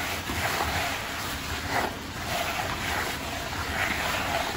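Dry floating fish-feed pellets being stirred and turned over by hand in a container: a gritty rustling swish that surges and fades with the strokes.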